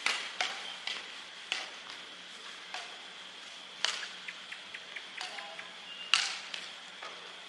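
Badminton racket strings striking a shuttlecock in a casual rally: sharp smacks at irregular spacing, roughly eight over several seconds, the loudest right at the start and about six seconds in.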